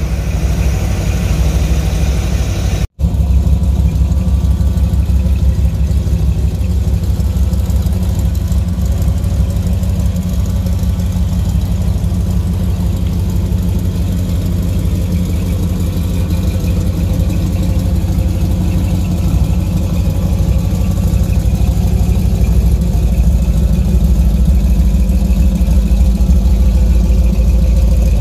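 A 496 cubic-inch stroker big-block Chevrolet V8 with a big cam, in a 1975 K5 Blazer, running steadily. The sound drops out for an instant about three seconds in and gets slightly louder near the end.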